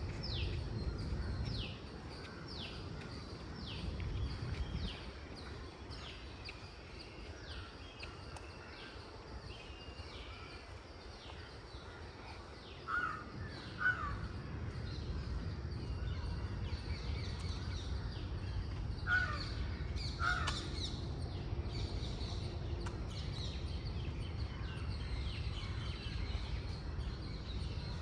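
Birds calling: one bird repeats a short high note that slides downward, over and over at less than a second apart, while crows caw in two quick pairs, about halfway through and again a few seconds later. A steady low rumble runs underneath.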